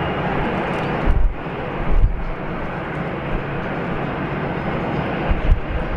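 Airbus A380's four Rolls-Royce Trent 900 jet engines running at taxi power: a steady jet rumble and hiss, with a few brief low thumps about one and two seconds in and near the end.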